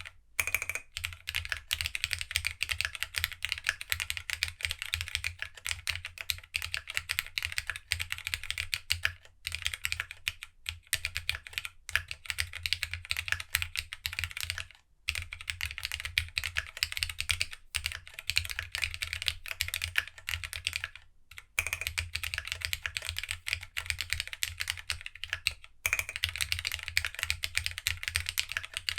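Plateless GEONWORKS W1-AT mechanical keyboard with no foam and GSA-profile keycaps being typed on fast and without a break in the rhythm, a dense run of key clacks. It pauses briefly a few times, about a third of the way in, around the middle and near the end.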